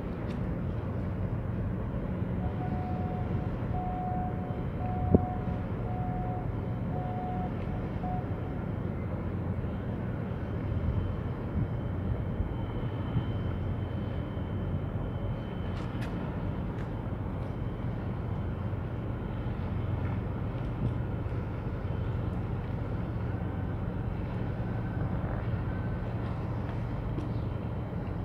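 A large oil products tanker passes close by with a steady, low machinery rumble. Early on a string of short, evenly spaced beeps sounds, about one a second, and there is one sharp click about five seconds in.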